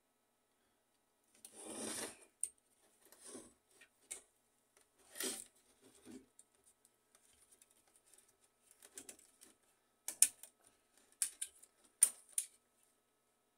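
Plastic and metal parts of an HP LaserJet M607 fuser assembly being handled, with its wiring worked by hand: scattered clicks and short rustling scrapes, with a few sharper clicks near the end.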